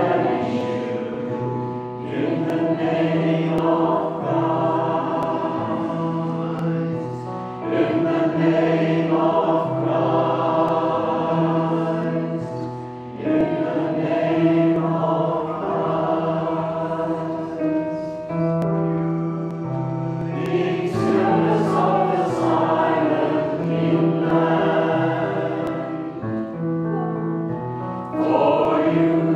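Small congregation singing a slow hymn together, accompanied on an electronic keyboard, in long held notes grouped into phrases a few seconds long.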